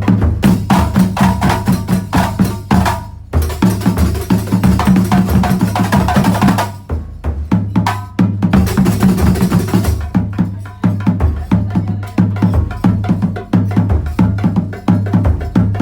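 Terbang frame-drum ensemble playing fast, dense interlocking rhythms with deep drum strokes underneath. The playing breaks off briefly about three seconds in and again around seven seconds.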